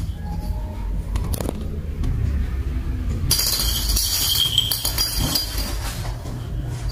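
A few light clicks and clinks of a small toy ball being batted across a tiled floor by cats, over a steady low rumble.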